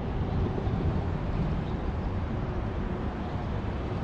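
Steady low rumble of traffic crossing the highway bridge overhead.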